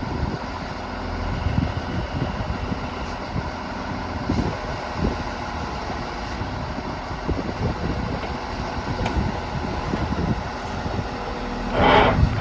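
A motor vehicle's engine running steadily, with scattered low knocks and rattles, and a short hissing burst near the end.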